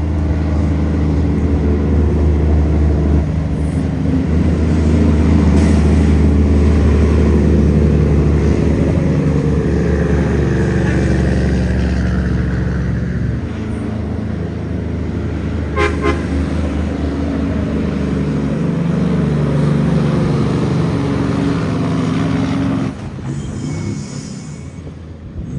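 Loaded heavy diesel truck pulling hard up a steep grade, its engine a loud low drone whose pitch shifts a few times as it climbs. A short horn toot sounds about two-thirds of the way through, and the engine noise drops off sharply near the end.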